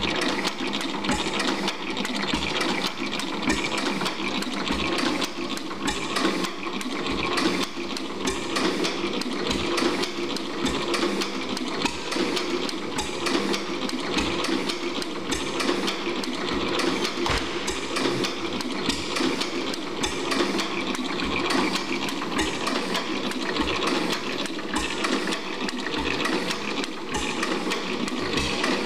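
4 HP Watkins stationary gas engine running steadily, with low thumps at uneven intervals over its continuous mechanical clatter.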